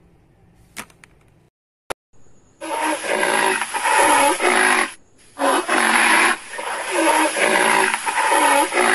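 Rhinoceros calls: loud, harsh, repeated calls in two long bursts with a short break between them, starting about two and a half seconds in.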